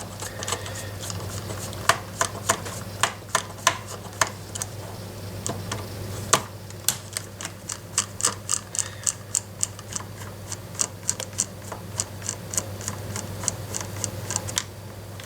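Screwdriver undoing the Phillips head screws inside an airsoft M4 pistol grip: scattered sharp metal clicks, then a steady run of ticks at about three a second in the second half.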